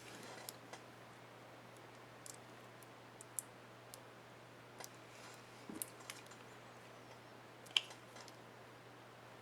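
Small plastic clicks and light taps at irregular intervals from an HP DM4 laptop keyboard's keycap and retainer clips being handled and fitted, the sharpest click about two thirds of the way through, over a steady low hum.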